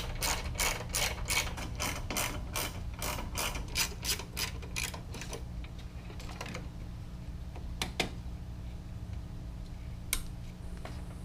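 Ratchet wrench clicking as a headlight mounting bolt is run in, a quick even run of about four clicks a second for some five seconds, then a few single clicks.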